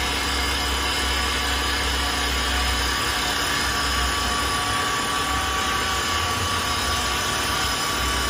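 CNC wood lathe running with a wooden blank mounted between its centres: a steady machine hum with several high, steady whining tones. The deep low hum eases off about three seconds in.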